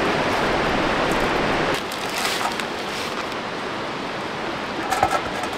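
Steady rushing of a fast river current, dropping a little in level about two seconds in, with a few light knocks near the end.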